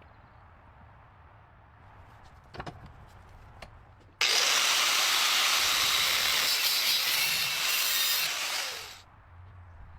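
A loud steady hiss starts abruptly about four seconds in, lasts about five seconds and tapers off near the end. A couple of faint clicks come before it.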